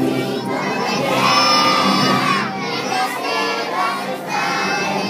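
A crowd of children's voices shouting together in long held phrases.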